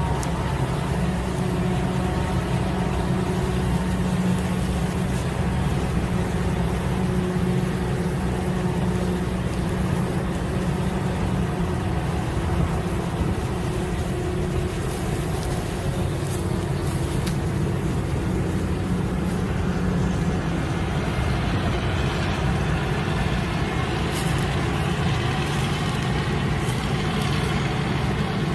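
Forage harvester running steadily while chopping maize and blowing the silage into a truck trailer alongside: a constant engine and machinery drone. A brighter hiss comes in about two-thirds of the way through.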